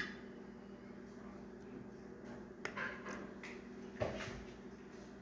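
A few short, faint clicks and knocks from household items such as a toothpaste tube and a detergent bottle being handled, over a steady low room hum.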